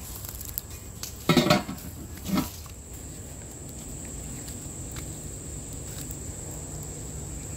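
Two short clatters of metal cooking pots and utensils about a second apart, over a steady high-pitched drone of insects.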